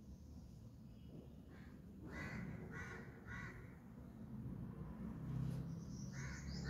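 A crow cawing: three short caws in quick succession about two seconds in, and another call starting near the end. A low rumble swells underneath around five seconds in.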